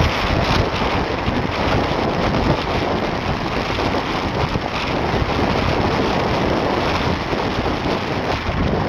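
Distant SpaceX rocket's engines during launch: a loud, steady rumble heard across open water.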